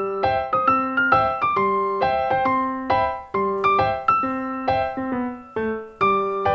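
Keyboard music in a piano sound: a melody of struck notes over chords, each note fading after it is played, about three notes a second.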